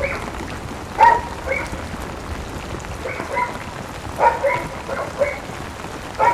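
Dog barking in a string of short barks, some in quick pairs, over steady rain.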